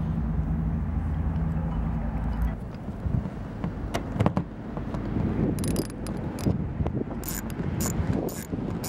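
A steady low hum for the first two and a half seconds. Then a series of sharp clicks and clinks from 10 mm socket ratchets, as a bolt with washers is tightened through a plastic trash can lid hinge.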